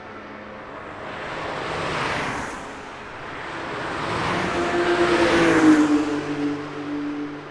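Cars driving past one after another: a fainter pass about two seconds in, then a louder one peaking a little past five seconds, its engine note dropping as it goes by.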